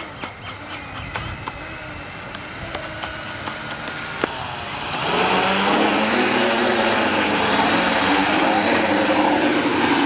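Four drone motors and propellers on a homemade quadcopter boat, running quieter with scattered clicks at first. About five seconds in they rise to a loud, steady buzz as the craft throttles up to lift off the water.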